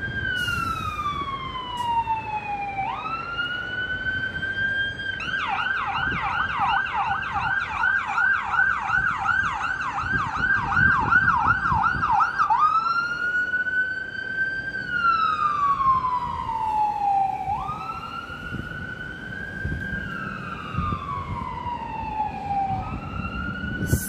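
Fire truck siren in a slow rising and falling wail, switching about five seconds in to a fast yelp of roughly three sweeps a second for some seven seconds, then back to the slow wail. A low rumble of street traffic runs underneath.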